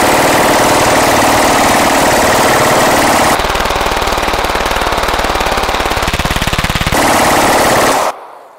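Full-auto Glock 17 9mm pistol firing one long unbroken burst, emptying a 100-round drum magazine. The shots stop about eight seconds in and the echo dies away.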